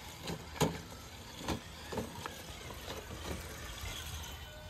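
Loose stones knocking and clacking in a run of about seven separate, irregular knocks, the loudest about half a second in, over a low steady rumble.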